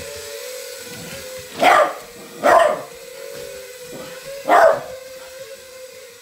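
A small dog barks three times: two barks close together a little under two seconds in, and a third more than half way through. Under the barks runs the steady, slightly wavering whine of the tiny FPV wing's small electric motor.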